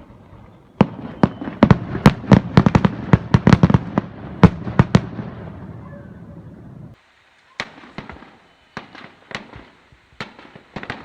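Fireworks going off, recorded through a smartphone's microphone: a dense run of sharp bangs and crackles in the first half. About seven seconds in the sound cuts abruptly, and only scattered single pops follow.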